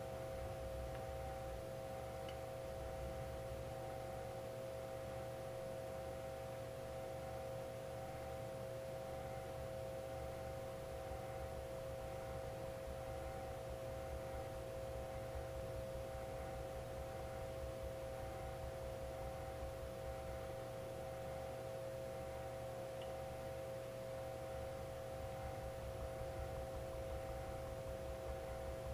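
Steady machine hum made of several held tones, unchanging throughout.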